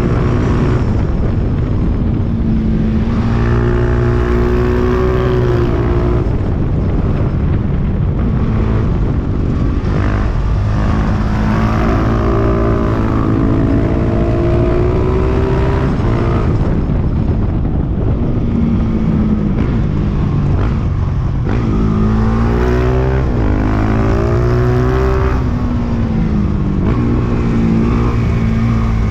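Husqvarna 701's single-cylinder engine running at speed, its pitch rising and falling again and again as the throttle opens and closes, over heavy wind rumble on the microphone.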